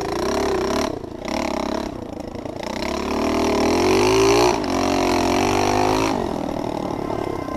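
Pit bike engine revving up and down under changing throttle while riding. It climbs to its highest and loudest about four seconds in, drops back suddenly, then runs lower and steadier near the end.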